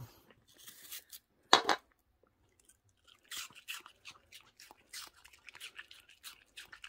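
Small dog biting into and chewing a piece of raw apple. There is one loud crunch about one and a half seconds in, then a steady run of crisp crunches, several a second.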